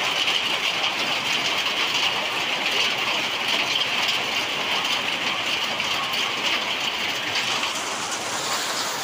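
Torrential rain with hail falling, a steady dense hiss and patter of countless impacts; the hiss eases slightly near the end.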